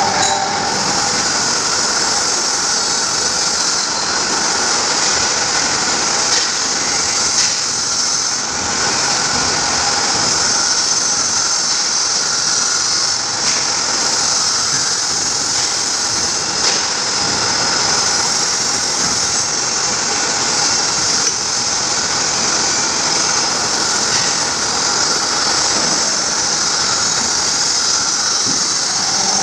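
Pipe bending machine running: a steady mechanical noise with a high hiss and a constant whine, without distinct strokes or pauses.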